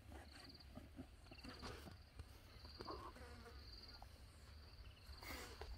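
Faint insect chirping: short pulsed trills, high in pitch, repeating about once a second over a low hum, with a few soft scattered clicks.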